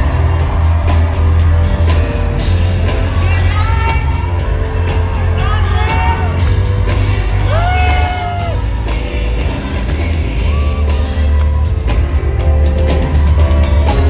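Live gospel ballad with a heavy bass line and a woman singing gliding vocal runs through the PA, with whoops and shouts from the audience, recorded from the crowd.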